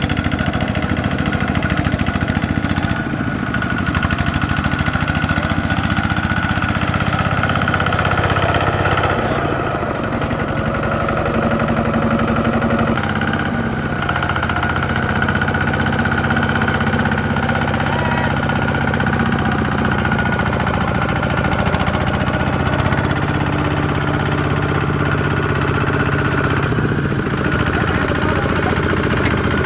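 Small diesel tractor engine running with a rapid knocking beat, its pitch shifting a couple of times as the load or throttle changes.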